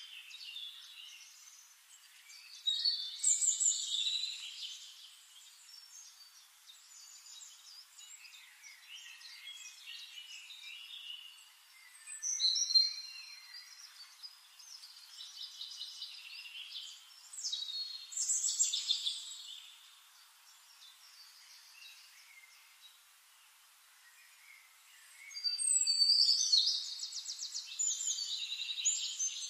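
Birds chirping and calling in several bursts of high notes, with a faint outdoor hiss between them; the loudest bursts come about three seconds in and near the end, where the calls become a fast run of repeated notes.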